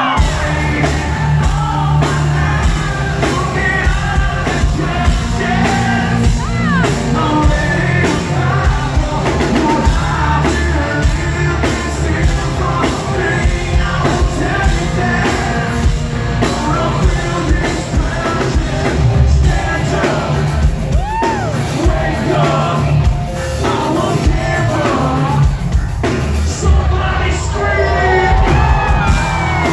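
Live rock band playing loud: a singer belting into a microphone over electric guitar, bass and drums.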